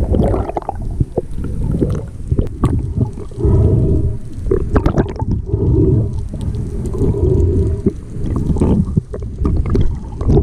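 Underwater sound picked up by a submerged camera: muffled rushing and gurgling water that comes in surges, with scattered sharp clicks.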